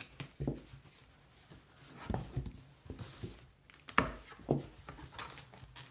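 Cardboard comic book mailer being handled and opened, tape pulled from it, with rustling and several sharp knocks, the loudest about four seconds in.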